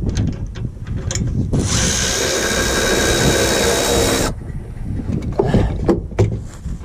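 A handheld power tool runs steadily for about three seconds, starting about a second and a half in and cutting off abruptly, with scattered clicks and knocks of metal tools around it.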